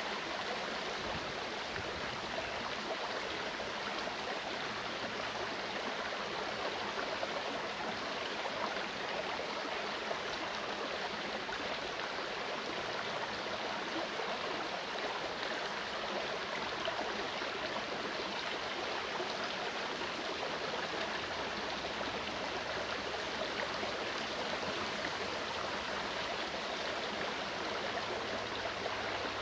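Mountain stream running over rocks: a steady rush of water with no change in level.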